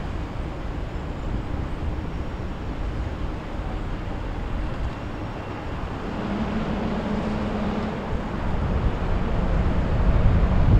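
Boat engine running with a steady drone, growing louder over the last few seconds.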